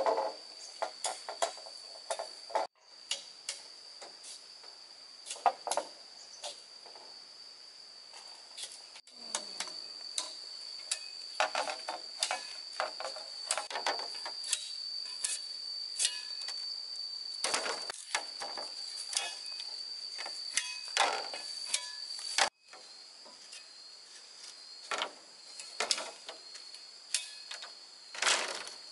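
Steady high-pitched drone of insects, with irregular sharp taps and knocks over it, some in quick runs; the knocks are the loudest sounds.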